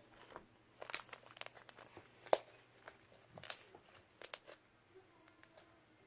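Slime being handled and squished, giving a scattered series of sharp crackles and pops, the loudest about a second in and in the middle.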